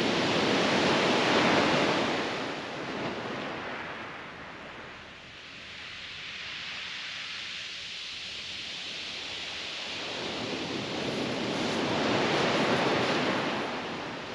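Small waves breaking and washing up a shingle beach, two swells of hiss about ten seconds apart with a quieter wash between them.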